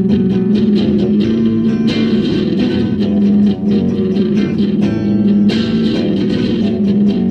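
Live band playing an instrumental passage with no singing: electric guitar and bass guitar over repeated sharp strikes, with a strong low note held underneath. There is a brief drop in level about three and a half seconds in.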